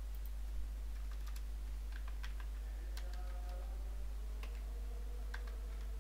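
Computer keyboard typing: a string of irregular keystrokes as a short word is typed, over a steady low electrical hum.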